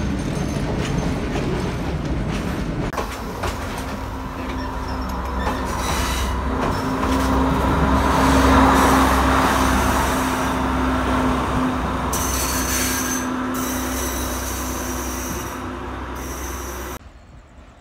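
Diesel passenger trains running on the track: a continuous rumble of wheels on rails under a steady drone, loudest about halfway through as the coaches pass close by. Brief high wheel squeals come in the second half, and the sound drops away abruptly near the end.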